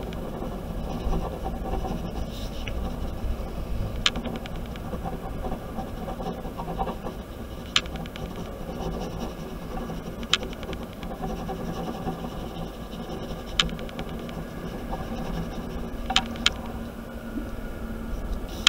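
Ballpoint pen scratching on paper while hatching in a portrait drawing, over a steady low hum, with a few sharp clicks scattered through.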